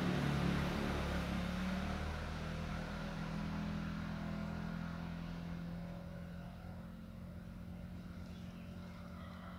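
An engine running steadily with a low hum, growing gradually quieter over the second half.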